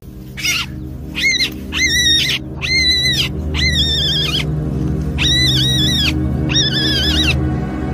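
A ground squirrel pup (marmot or prairie-dog type) screaming in alarm: about seven shrill, high-pitched calls in a row, each roughly half a second long with a wavering pitch, given as a hand reaches toward it. Background music with steady low tones plays underneath.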